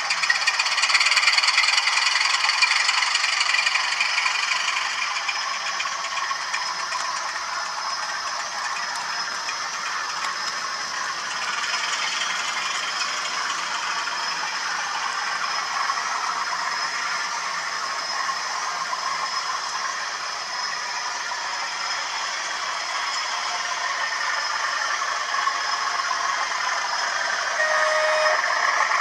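OO gauge model trains running on Hornby track, a steady rattling clatter of wheels and motors over rail joints and points. It is loudest in the first few seconds as a rake of coaches passes close by, eases off, then rises again near the end as another locomotive approaches.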